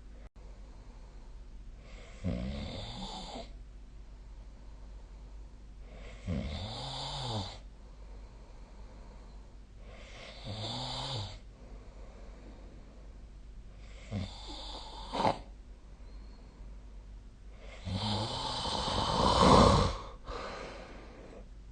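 A sleeping person snoring: five snores about four seconds apart, each lasting a second or two. The last, near the end, is the loudest and longest.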